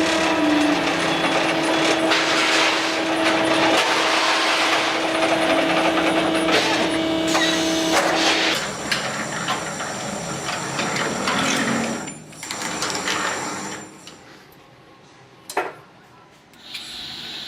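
Rebar spiral-bending machine running: a steady motor hum with mechanical clatter, which changes and drops away after about eight seconds, then a single sharp click near the end.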